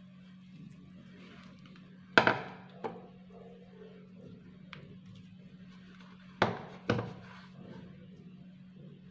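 Hands kneading soft dough in a bowl on a stone counter, with two pairs of sharp thunks, the first the loudest, about four seconds apart, over a low steady hum.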